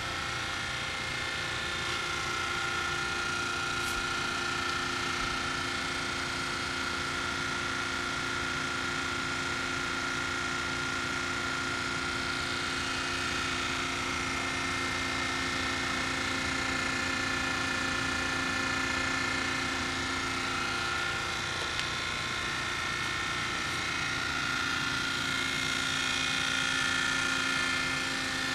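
Hydraulic test stand running with a Kitagawa S1552 hydraulic rotating cylinder connected: a steady mechanical whine with several held tones over a low hum. One of the lower tones drops out for a few seconds about three-quarters of the way through.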